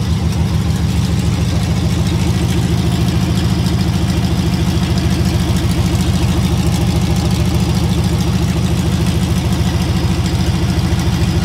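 Supercharged 5.7 Hemi V8 in a Ram 1500 idling through freshly installed long-tube headers with no exhaust system behind them: a loud, steady run of even exhaust pulses.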